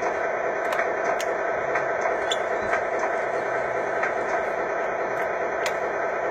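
Small electric motors of a radio-controlled construction model running with a steady whine, with a few sharp clicks scattered through.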